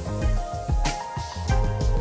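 Background music with a bass line and a steady drum beat.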